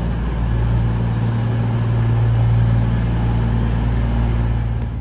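CrossCountry Class 221 Voyager diesel multiple unit standing with its underfloor diesel engines running: a steady, loud low hum.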